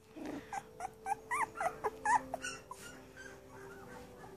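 Two-week-old Aussiedoodle puppies whimpering: a quick run of about seven short, high squeaks that rise and fall in pitch in the first half, then fainter.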